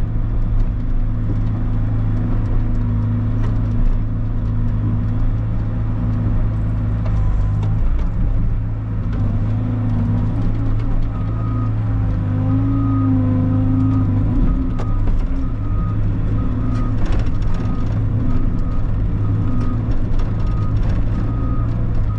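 Bobcat heavy equipment's diesel engine running steadily under load, with a wavering whine above it. From about halfway through, its reverse alarm beeps about once a second.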